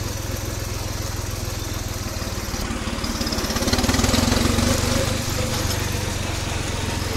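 New Holland tractor's diesel engine running steadily as the tractor is driven. Its note swells about halfway through as the engine speeds up, then settles again.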